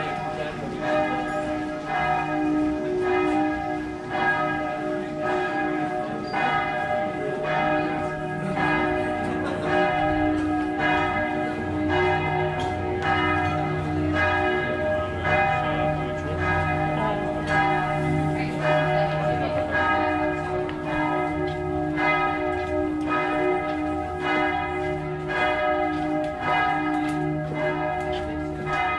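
Church bells pealing, struck over and over with their tones ringing on and overlapping.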